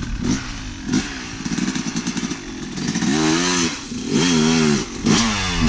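Yamaha YZ250 two-stroke dirt bike engine revved hard over and over, each rev a pitch that climbs and then drops away, with two longer held revs about three and four seconds in.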